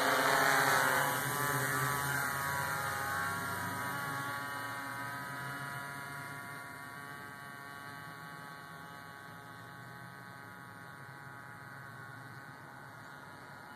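Turbo Ace Matrix quadcopter's motors and propellers giving a steady buzzing whine of several stacked tones, fading steadily as the drone climbs away high overhead.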